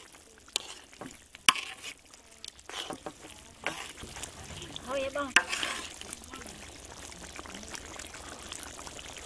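Metal spoon stirring a simmering duck stew in a large aluminium wok, scraping and clinking sharply against the pan a few times. In the last few seconds the stirring stops and the stew bubbles and sizzles steadily.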